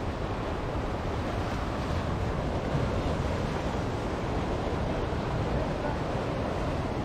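Ocean surf washing steadily on a sandy beach, with wind rumbling on the microphone.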